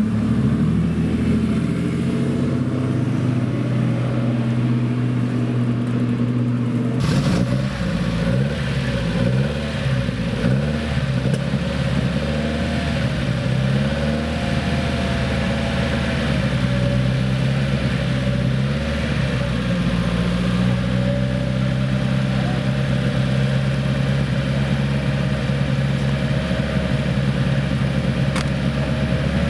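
Vintage racing car engine running loud, its pitch stepping up and down as the revs change.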